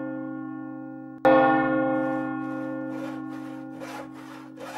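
A large bell tolling. The ringing of one stroke fades, then a second stroke sounds about a second in and rings on slowly, dying away. From about three seconds in, faint short scraping strokes come about three a second over the fading bell.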